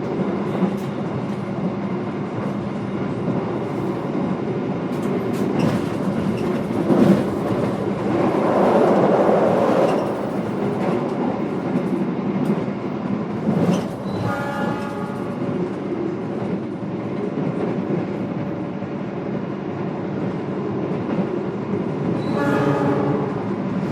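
Inside a passenger train carriage on the move: a steady rumble and hum of the train running, with scattered knocks and clatter. A brief pitched tone sounds a little past halfway and again near the end.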